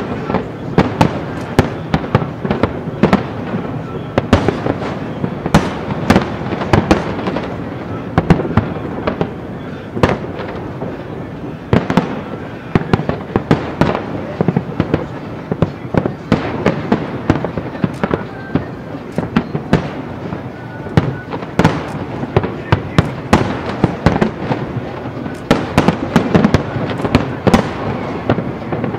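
Aerial fireworks shells bursting in quick succession: a dense run of booms and crackles, several a second, over a steady low rumble.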